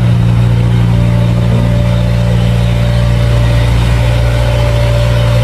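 A machine running with a steady, loud low hum that does not change.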